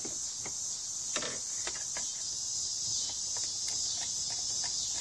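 Cicadas singing steadily in the background, with small scattered clicks and taps of a hand and screwdriver working inside a car's dashboard opening.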